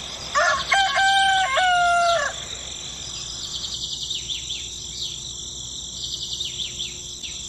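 A rooster crows once, a drawn-out cock-a-doodle-doo lasting about two seconds near the start, followed by small birds chirping repeatedly in short falling chirps.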